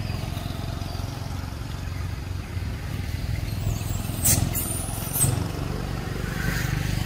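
Steady low rumble, with two brief sharp sounds about four and five seconds in.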